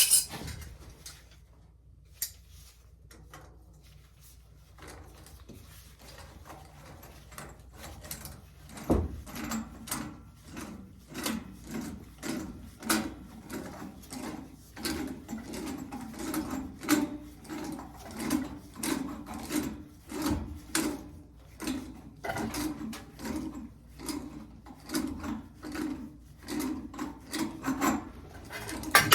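A threaded pipe joint being tightened with a wrench: repeated creaking, rasping strokes as the doped threads turn, about one or two a second, starting about nine seconds in after a quieter stretch with a few clicks.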